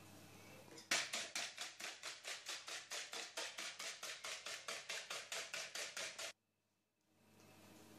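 Wire whisk beating eggs in a plastic bowl: a quick, even tapping of about five or six strokes a second that starts about a second in and cuts off suddenly some five seconds later.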